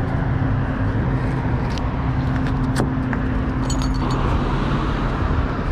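Steady road-vehicle rumble with an engine hum that cuts off about four seconds in. A few light metallic clinks come as a heavy iron find is handled at the bridge railing.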